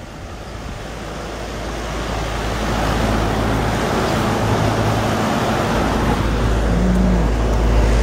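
Carrier central air-conditioner outdoor condensing unit running: a steady rush of condenser-fan air over a low hum, growing louder over the first few seconds and then holding steady.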